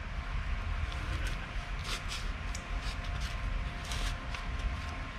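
Faint scraping and small clicks of a knife blade working at a length of rubber hose, over a low steady hum.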